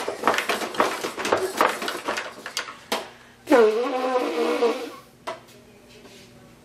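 Baby laughing in short bursts. About three and a half seconds in, a man blows his nose hard in one long, raspy honk.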